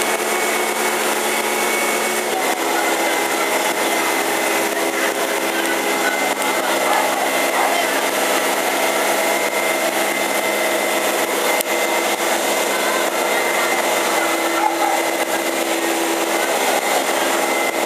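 A fire truck's engine-driven water pump running steadily at high revs, a constant mechanical whine with a hiss over it; its tone shifts about two seconds in.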